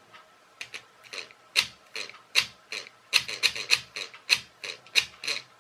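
Two-wire 12 V car power door lock actuator run off a 9 V battery. Its small motor drives the plunger in and out in a quick series of short rasping clunks, more than a dozen, coming closer together from about a second and a half in.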